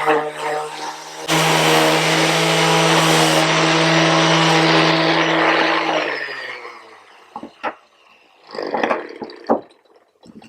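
An electric shop machine's motor running at a steady speed, briefly interrupted about a second in, then switched off around six seconds in and winding down with falling pitch. A few sharp knocks and clatters follow near the end.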